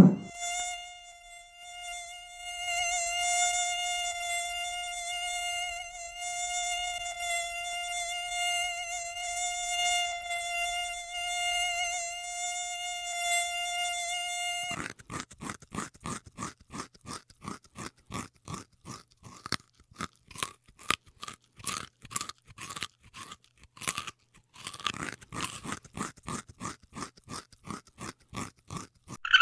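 A flying insect's high, steady wing whine, which then gives way about halfway through to a rapid run of short chirps at roughly three a second, pausing briefly once.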